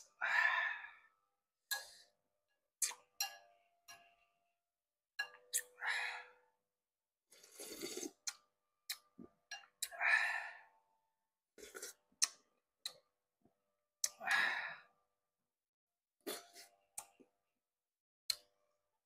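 Close-up eating sounds of rice porridge spooned from a ceramic bowl: about four slurps a few seconds apart, with short clicks and clinks of a metal spoon against the bowl and mouth smacks between them.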